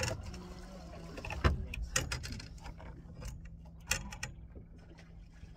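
Scattered metallic clicks, rattles and knocks of fishing tackle being handled at a boat's rail, with one loud knock about a second and a half in, over a steady low hum.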